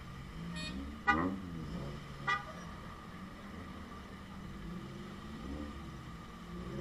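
Vehicle horn giving two short toots about a second apart, the first louder, over a low steady engine hum.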